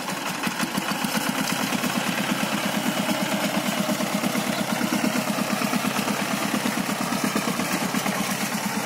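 Power tiller's single-cylinder diesel engine running steadily with a rapid, even chug.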